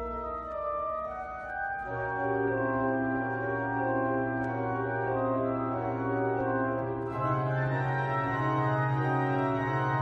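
Pipe organ playing a very quiet piece in slow, sustained chords, recorded on a cell phone. A low pedal note comes in about two seconds in and moves up to another held note around seven seconds, under changing upper harmonies.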